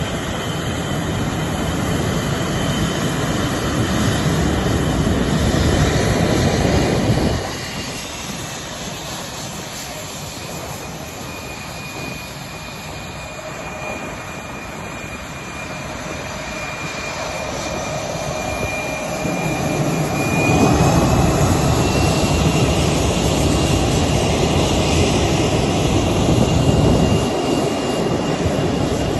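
HAL Tejas fighter's single General Electric F404 turbofan running as the jet taxis: a steady high turbine whine over a heavy engine rumble. The rumble drops suddenly about seven seconds in, swells back up after twenty seconds, and the whine rises slightly in pitch there.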